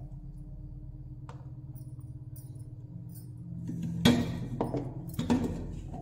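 Stainless-steel mixer-grinder jars and bowls clinking and knocking as they are handled and set down, with the loudest sharp knocks about four and five seconds in. A steady low hum underlies it.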